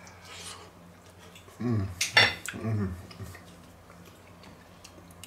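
A metal fork clinking and scraping on a dinner plate while eating, with one sharp clink about two seconds in. Short low voice sounds from the eater come between the clinks.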